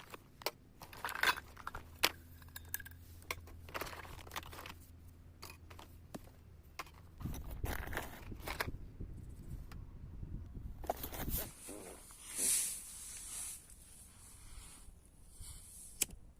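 Scattered clicks, knocks and scrapes with some rustling, as of things being handled, over a faint low hum; a low rumble comes in around seven seconds and a short hiss follows near twelve seconds.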